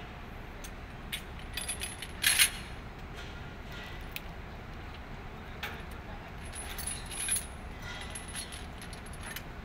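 Scattered light clinks and taps, the sharpest about two seconds in and another cluster around seven seconds, over a steady low rumble.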